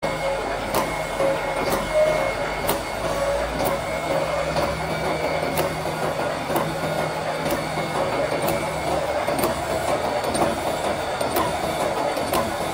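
Automatic roll wire mesh welding machine running: a steady mechanical clatter with a sharp click about once a second, one per welding cycle as each cross wire is welded onto the mesh.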